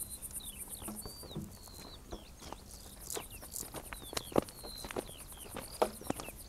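Summer field ambience: insects chirring high and fast, with short whistled bird chirps every second or so. A few sharp footfalls land on a dirt track.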